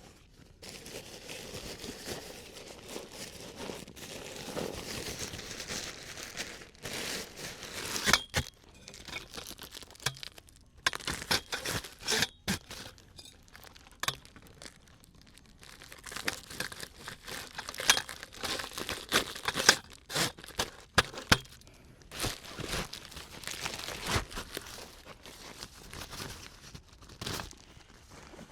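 Crinkly material being rustled and crumpled by hand in irregular bursts, with a few sharp knocks between them.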